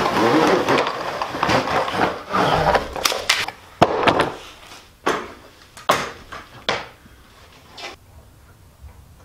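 Rustling and scraping of a long light-fixture box being handled, followed by about six sharp knocks and clicks, roughly a second apart and growing fainter, as a light is fitted up at a garage ceiling.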